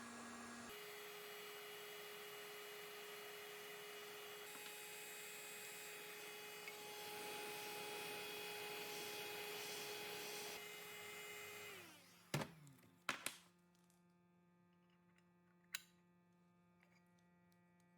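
A small machine's motor hums steadily, then is switched off and winds down about twelve seconds in. A few sharp knocks follow.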